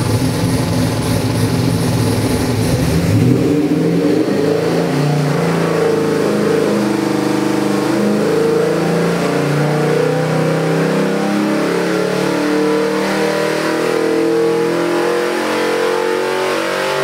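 Ford 347 cubic-inch stroker small-block V8 on an engine dyno making a power pull under load, its pitch climbing steadily as it sweeps from about 3,000 to about 5,500 rpm, then just starting to drop at the very end.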